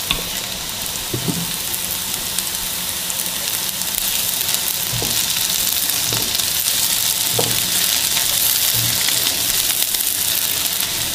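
Chopped onions sizzling in oil in a non-stick frying pan as they are sautéed soft, stirred with a silicone spatula that knocks and scrapes against the pan now and then. The sizzle grows a little louder about four seconds in.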